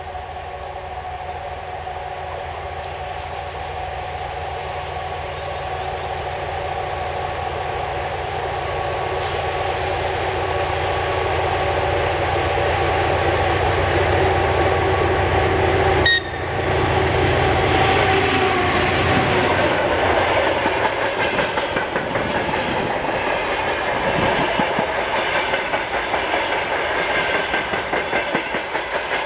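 GE C36-7i diesel-electric locomotive with its 16-cylinder engine running under power, growing steadily louder as it approaches and passes. About halfway through, the engine gives way to a long string of freight wagons rolling by with a rhythmic clatter of wheels on the rails.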